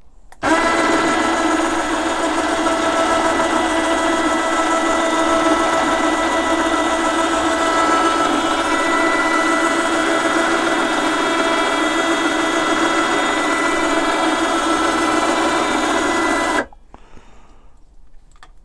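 Rhino 3,000 lb 12-volt electric winch running, its motor and gearbox reeling synthetic rope in onto the drum: a steady whine that starts about half a second in and cuts off suddenly about two seconds before the end.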